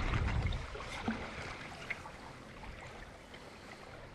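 Water lapping and trickling against a canoe's hull out on the lake, with a few small drips, over wind rumbling on the microphone that is strongest in the first second.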